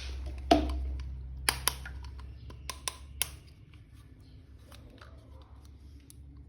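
A few sharp plastic clicks and taps from a toy figure and its packaging being handled in an unboxing, busiest in the first three seconds, then only faint handling noise.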